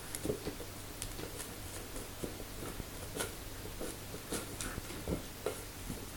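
Small dog playing with a toy ball, biting and mouthing it, giving irregular soft clicks and knocks.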